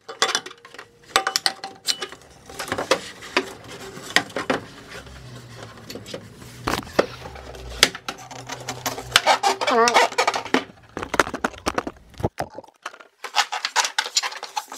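Irregular metallic clinks, knocks and rattles of hand tools, hose clamps and intercooler piping being undone and pulled free, with a brief wavering squeak about ten seconds in.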